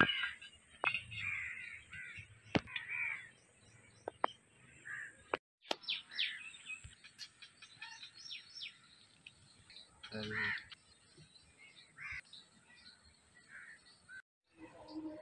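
Crows cawing again and again, with a few sharp knocks of bricks being set down in the first few seconds.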